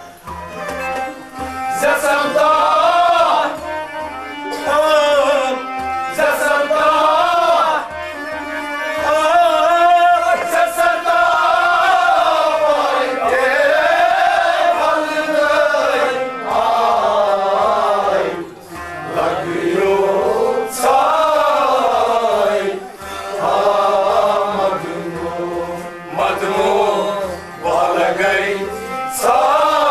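Man singing a Kashmiri song in long, wavering, ornamented phrases over a steady drum beat.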